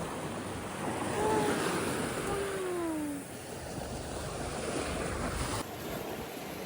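Sea surf washing onto a beach, with wind buffeting the microphone. A faint drawn-out falling tone sounds about a second in, and the sound changes abruptly near the end.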